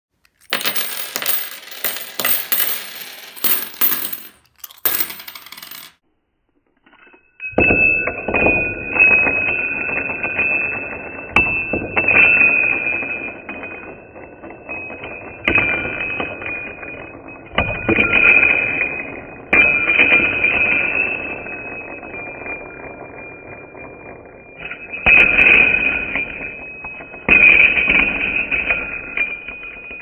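Silver dimes sliding and pouring out of a plastic coin tube onto a wooden table, clinking in repeated clattering spills, each leaving a sustained high metallic ring. Rapid clicking fills the first few seconds, before the pours.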